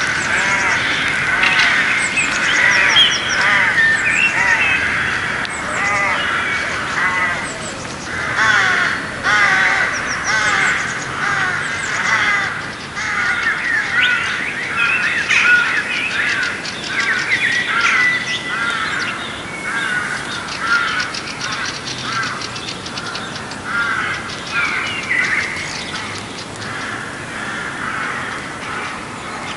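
A dense chorus of many birds calling over one another, a steady mass of short rising and falling chirps and whistles.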